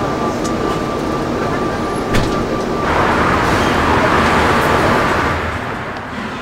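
City street traffic: steady roadway noise from cars and buses at a busy intersection, getting louder for a couple of seconds around the middle.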